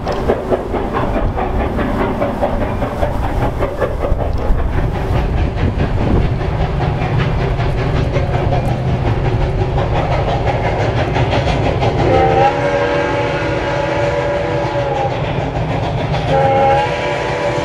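Soo Line 1003, a 2-8-2 Mikado steam locomotive, running with a fast, rhythmic beat. It blows its steam whistle twice: a long blast about twelve seconds in, and another near the end.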